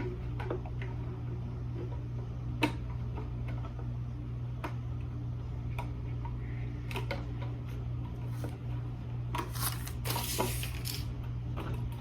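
Small handling noises: scattered clicks and taps, a sharp click about two and a half seconds in and a rustle around ten seconds in, over a steady low hum.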